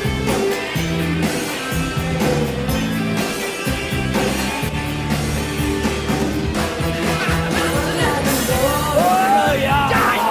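Rock and roll song playing: a singer over a band with a steady bass line. Near the end a voice slides up and down in pitch.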